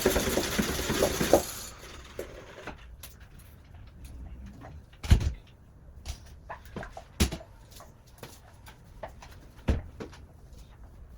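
Kitchen floor being washed: a loud rush of splashing and scrubbing for the first second and a half, then scattered knocks and scrapes with three sharper thuds spread through the rest.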